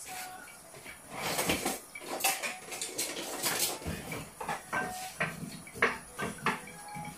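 Dishes and utensils clinking and clattering on a kitchen counter: irregular knocks and scrapes, some with a short ring, starting about a second in.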